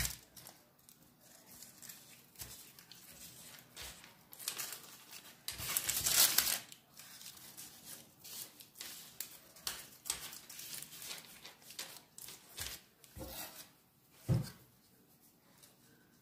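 Baking paper rustling and crinkling in irregular bursts as a sheet of dough is rolled up into a log by hand, with one soft thump near the end.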